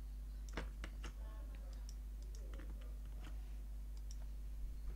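Scattered faint clicks of a computer mouse and keyboard as a line of code is selected, copied and pasted, over a steady low electrical hum.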